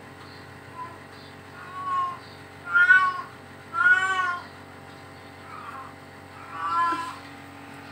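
A cat meowing repeatedly: about five short meows, a second or so apart, each rising and falling in pitch, the loudest near the middle.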